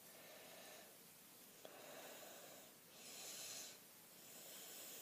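Quiet, slow breathing close to the microphone: soft breaths in and out about every second or so, one of them hissier about three seconds in. A faint tick comes about a second and a half in.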